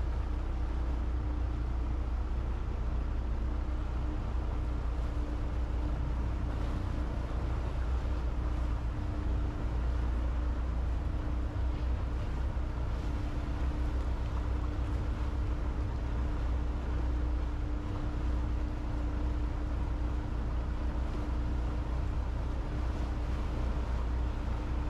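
Motorboat engine running steadily, heard from aboard: a low drone with a steady hum over the rush of water and wind.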